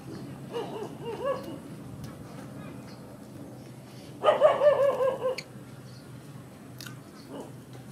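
High, wavering whimpering calls. A short weaker run comes near the start, and a louder one about four seconds in lasts about a second.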